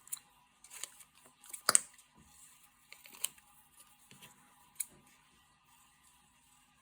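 Scattered light taps and clicks of paper and card being handled on a craft table, the sharpest about two seconds in, fainter after the middle.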